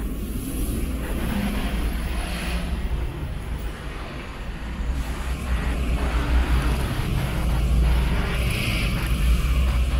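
Traffic on a wet city street: cars and other vehicles driving past with a steady low engine and road rumble that grows louder in the second half.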